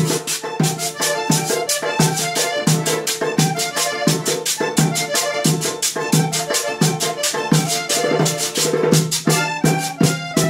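Live band music: a button accordion playing the melody over an acoustic guitar, with a tube shaker keeping a dense, even rhythm and a low beat about every 0.7 seconds.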